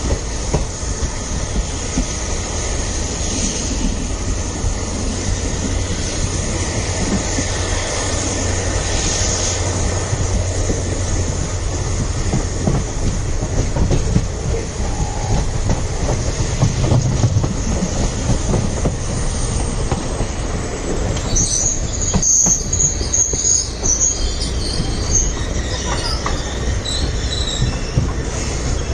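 A passenger train's coaches running along the track, heard from an open coach window: a steady rumble and clatter of steel wheels on the rails. High-pitched squeaks come in during the last third.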